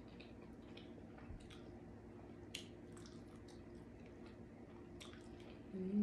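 Close-up mouth sounds of someone chewing barbecued pork rib tips: faint, scattered wet smacks and clicks over a steady low background hum. A short hummed "mm" near the end.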